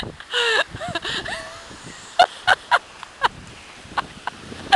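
A woman laughing in short bursts, louder in the first second or so, then a few brief sharp laughs and quieter stretches.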